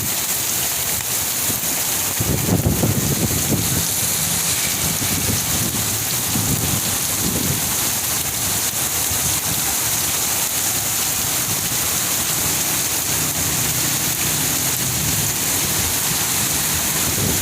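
Heavy rain falling as a steady, dense hiss, with a louder low rumble about two to three seconds in and a weaker one a few seconds later.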